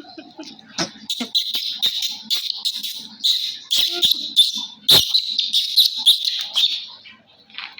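A young monkey squealing, a rapid series of shrill, high-pitched cries from about a second in until near the end, with sharp clicks among them.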